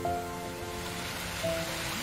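Slow, calm relaxation music of long held notes, over a soft hiss of water sound that swells in the second half.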